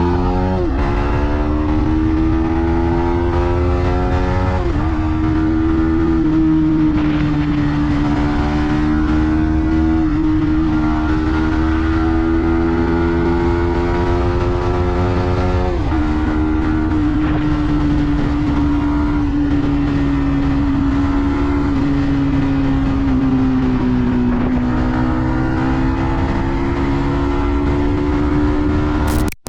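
Yamaha MT-15 V2's 155 cc single-cylinder engine pulling under way, its exhaust note climbing steadily in pitch and dropping sharply at the upshifts, about three times. Later the pitch eases down briefly as the throttle is rolled off, then climbs again; the sound cuts out for an instant right at the end.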